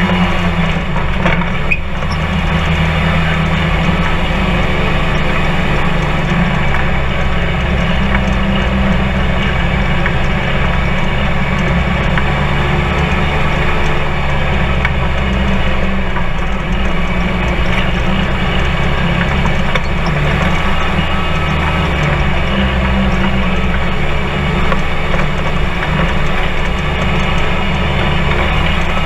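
Polaris RZR 4 side-by-side running steadily along a dirt trail, engine and drivetrain heard from inside the open cab.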